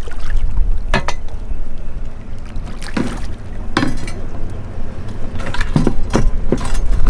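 Several sharp clanks and clinks as a fluke-style metal boat anchor is handled and set down into a plastic bucket, over a steady low rumble.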